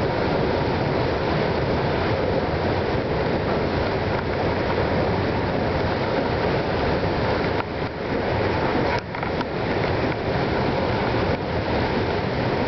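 Moving walkway running: a steady, even noise of its moving belt and drive, heard close up. It dips briefly twice about two-thirds of the way through.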